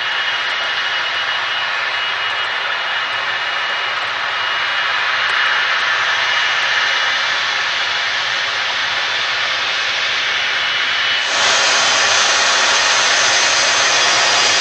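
Airbus A330-200 jet engines running loud and steady, a dense rushing noise with a faint whine in it, becoming suddenly louder and brighter about eleven seconds in.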